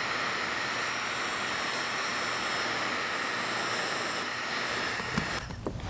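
Heat gun running steadily, a fan rush with a thin high whine, heating vinyl wrap film to set it on the grille trim; it cuts off near the end.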